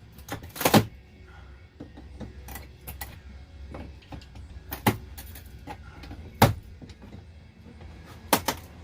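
Scattered sharp knocks and cracks, about five spread over several seconds, as an RV ceiling panel is pried and pulled loose, over a steady low hum.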